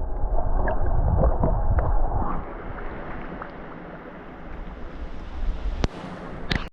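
Wind buffeting the microphone over moving water around a kayak, dropping after about two seconds to a quieter steady hiss of water. Two sharp clicks come near the end before the sound cuts off suddenly.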